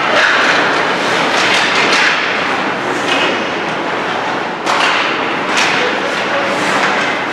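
Ice hockey practice: skates scraping and carving across the ice in a steady hiss, with two sharp knocks of pucks and sticks on the ice and boards about two-thirds of the way through.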